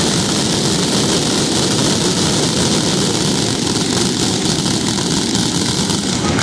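Dense fireworks barrage: many bangs and crackles in quick succession, merging into one continuous loud din with no pause.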